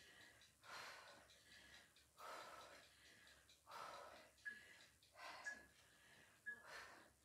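Faint exertion breathing from a woman doing Russian twists: a short, sharp breath about every second and a half. Midway through and near the end there are a few brief high squeaks.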